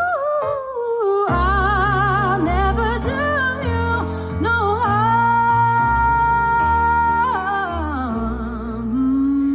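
A woman singing live with instrumental backing, her voice wavering with vibrato and holding one long note about halfway through before sliding down, over a steady bass line.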